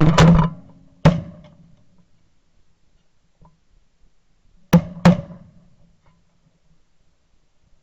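Four shotgun shots at sandhill cranes, each a sharp blast with a short echoing tail. Two come in the first second, then after a pause of nearly four seconds two more follow in quick succession.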